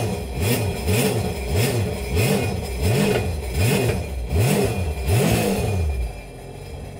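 Jet ski engine running out of the water on its trailer, cooled by a flush hose, revved in quick repeated blips of nearly two a second. It drops back to a lower, steadier note about six seconds in. Revving it out of the water like this is something the owner thinks wears the ski out.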